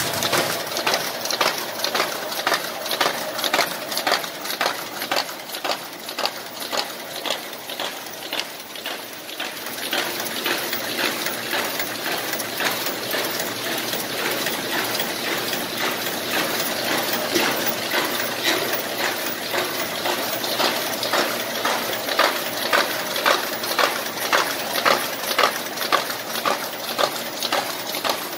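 SF1 sheet feeder, accumulator and folder running on a BH 1000 mail inserter: continuous rapid clicking and clacking of the paper-handling mechanisms, with a louder clack a little more than once a second.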